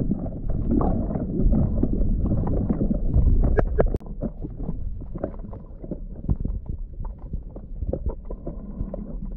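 Water heard underwater close to the camera microphone: a muffled rushing and sloshing with many scattered crackling clicks. It is louder for the first four seconds, then drops suddenly to a quieter crackle.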